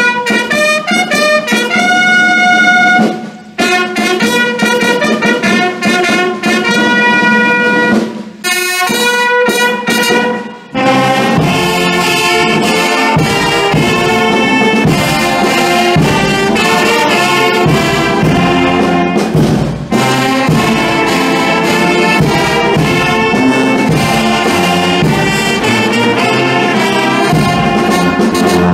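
Brass band playing: a few long held notes broken by short pauses at first, then the full band comes in about a third of the way through and plays on steadily.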